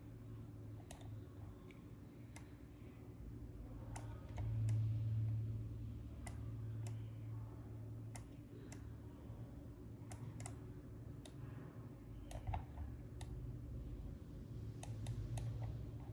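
Irregular single clicks of a computer mouse and keyboard, roughly one a second with short clusters, over a steady low hum.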